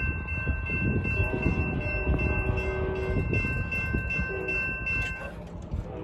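Railroad crossing warning bell ringing steadily while the gate arms rise, over the low rumble of the train moving away. The bell cuts off suddenly about five seconds in as the gates reach upright, the sign that the crossing is clearing after the train has passed.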